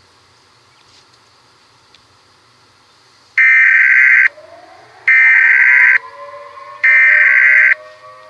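Emergency Alert System header tones: three loud, screeching data bursts of about a second each, evenly spaced, beginning about three seconds in after faint hiss. A siren starts winding up underneath after the first burst, rising in pitch.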